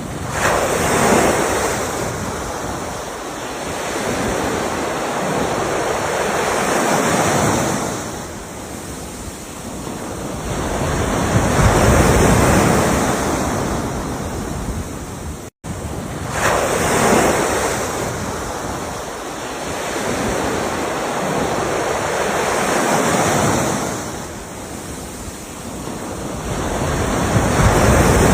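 Ocean waves breaking on the shore, the surf surging and ebbing about every five to six seconds. The sound cuts out for a split second about halfway through.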